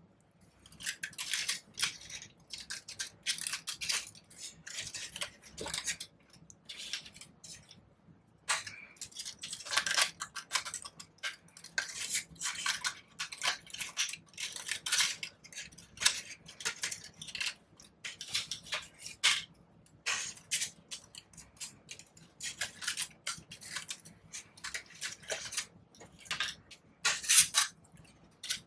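Paper flowers and paper leaves rustling and crinkling as they are handled and pushed into a bouquet: an irregular run of short crackles with brief pauses.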